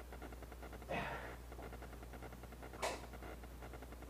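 A man breathing out hard in short bursts, one with each rep of a seated cable ab crunch on a Bowflex Classic, about two seconds apart, over a steady low hum.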